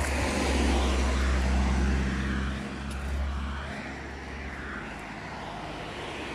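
A car passing close by on the road, its tyre and engine noise swelling to a peak in the first two seconds and then fading away.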